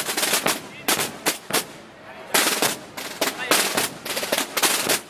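Holy Week procession drums beating in irregular clusters of sharp, loud strikes.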